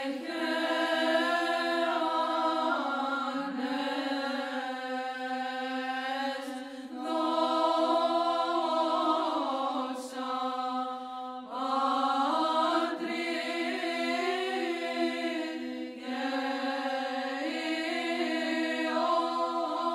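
Orthodox church chant used as background music: voices sing a slow melody over a steady held drone note, in phrases with short breaths about every four seconds.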